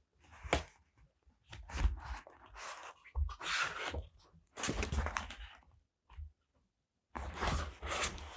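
Paper and stickers being handled on a desk close to the microphone: irregular rustling and scraping strokes with light taps and dull bumps, pausing briefly about six seconds in.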